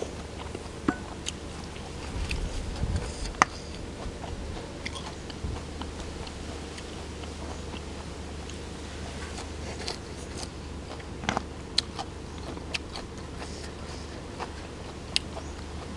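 Close-miked mukbang eating: a person biting and chewing a spicy som tam of field snails and raw shrimp, with scattered sharp clicks and a louder stretch of mouth noise about two to three seconds in.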